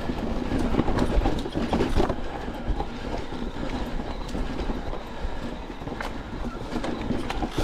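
Niner WFO e9 mountain bike riding fast down a rocky dirt trail: tyres rumbling over dirt and stones, with a steady clatter of chain and frame rattle and many small knocks.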